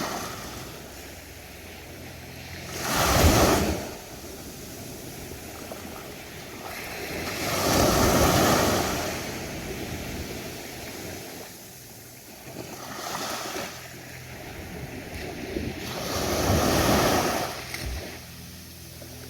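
Ocean waves breaking on a beach, one surge of surf about every four to five seconds over a steady wash of water. The first break is the sharpest.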